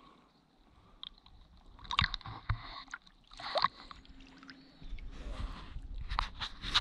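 Kayak paddle strokes: water splashing and trickling off the blade in irregular bursts, about two seconds in, at three and a half seconds, and again through the last two seconds, with a low rumble under the last burst.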